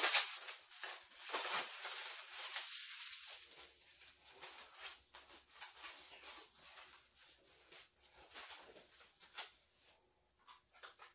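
Plastic and paper packaging crinkling and rustling as small tools are unwrapped by hand, loudest in the first few seconds and then trailing off into scattered quieter crinkles.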